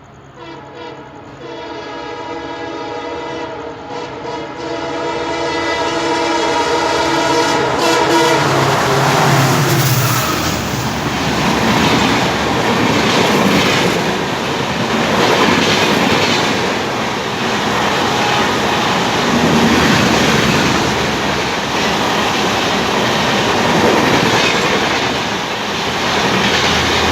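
Diesel-hauled Indian Railways express approaching at high speed with one long, steady horn blast that grows louder for about eight seconds. The train then rushes past, and the coaches' wheels rumble and clatter over the rail joints for the rest.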